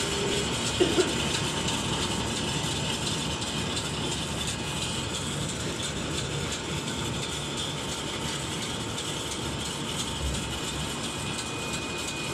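Chocolate coating machine's wire-mesh conveyor and drive running with a steady mechanical noise. Two brief sharp sounds come about a second in.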